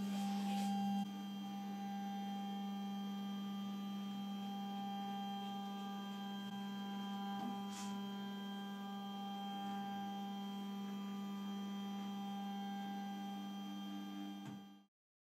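Stepper motor driving a camera slider's linear actuator: a steady whine with a strong low tone and many higher overtones, a little louder for about the first second. The sound cuts off suddenly shortly before the end.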